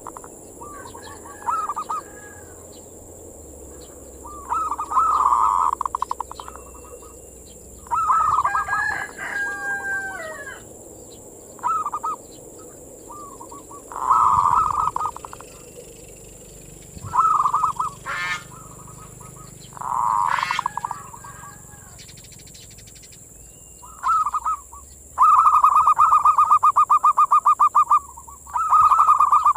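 Zebra dove (perkutut) singing its cooing manggung song: short phrases of rapid coo notes repeated about every three seconds, with a longer fast-pulsed phrase near the end. Other bird calls come in between the phrases, over a steady high hiss.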